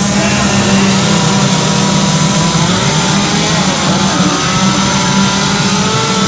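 Petrol chainsaws running steadily at high revs, cutting into wood during carving.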